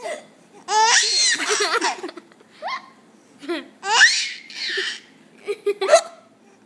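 Baby laughing in several high-pitched bouts of giggles and squeals, the longest about a second in and again about four seconds in, set off by an adult's hiccups.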